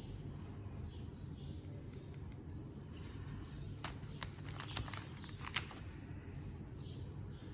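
A few sharp clicks and taps of sewing-kit items being handled, clustered from about four to five and a half seconds in, over a steady low hum and faint repeated high chirping.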